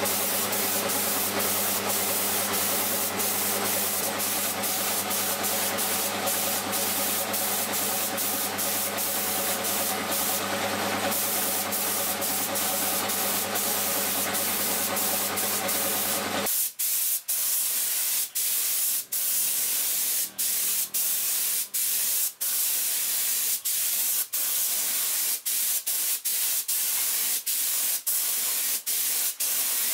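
Gravity-feed compressed-air spray gun hissing steadily as paint is sprayed, over a steady low hum that cuts off about halfway through. After that the hiss continues alone, breaking off briefly many times.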